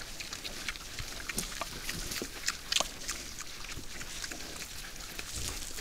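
Several wild boars feeding at a bait spot: irregular short clicks and crunches as they chew and root in the ground, the sharpest a little under three seconds in.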